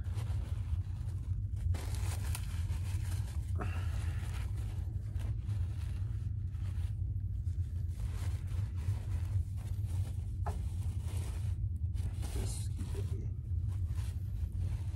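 Paper fast-food bags rustling and crinkling in irregular handfuls, as in searching through them for napkins, over a steady low hum.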